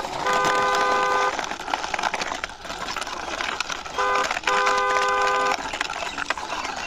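Two-tone car horn honking: a quick toot then a longer honk, the pair sounding twice about four seconds apart.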